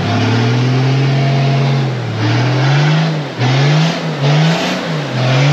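Lifted 4x4 SUV's engine held at high revs, then revved up and down in a series of short surges as its mud tyres spin and fling mud while it climbs out of a deep muddy rut.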